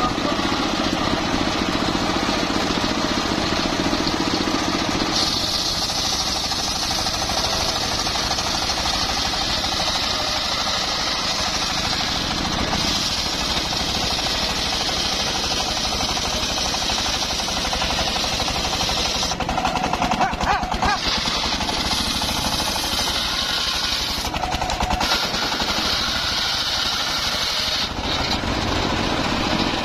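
Engine-driven circular saw of a homemade sawmill running steadily. From about five seconds in, a loud high hiss joins the engine drone as the blade cuts through mahogany, and it drops out briefly a few times.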